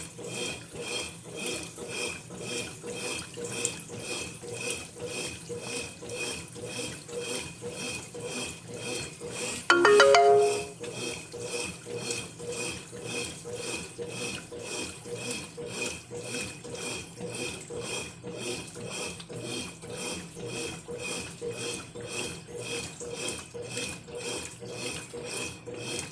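Brastemp Ative 11 kg washing machine agitating a very full load, water sloshing in an even pulse about twice a second. About ten seconds in there is one brief, louder pitched sound.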